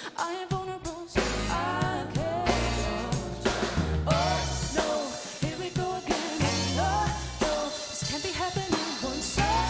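Live pop-rock band playing: a female lead voice sings over a drum kit and electric guitar.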